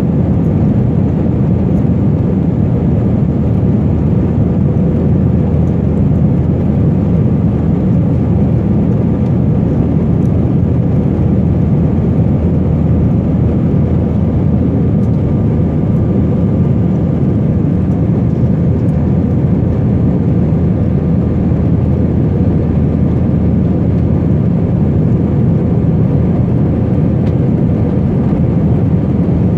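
Steady cabin noise of a jet airliner in flight: the low rumble of the engines and rushing air heard from inside the cabin, with a faint steady hum over it.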